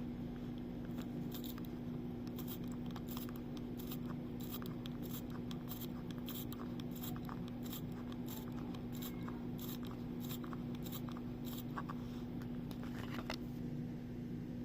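Small, sharp clicks, a few each second, as an automatic watch movement is hand-wound and handled, over a steady low hum. The movement is not winding.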